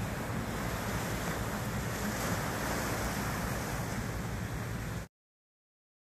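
Steady rush of sea surf and wind, with low rumbling wind noise on the microphone; it cuts off abruptly to dead silence about five seconds in.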